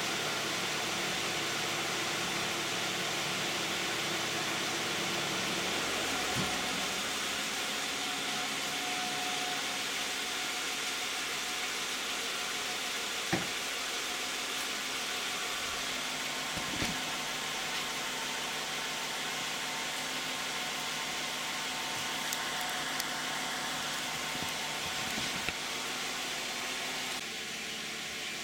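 2010 Toyota Camry's 3.5 V6 idling with the hood closed, the engine itself barely audible under a steady hiss, with a few faint clicks midway.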